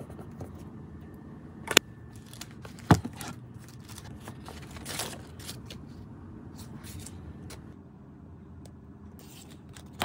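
Small craft scissors snipping clear sticker film, two sharp clicks about a second apart, then the crinkle and rustle of plastic sticker sheets being handled and stickers peeled off their backing.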